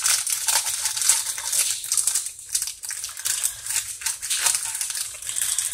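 Plastic wrapper of a Kracie Popin' Cookin' candy-kit packet crinkling as it is handled and cut open with scissors: a steady run of rustles and small crackles.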